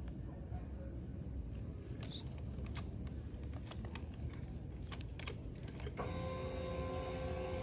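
A few sharp clicks, then about six seconds in a Kawasaki Z400's electric starter motor begins cranking with a steady whine, the engine not catching.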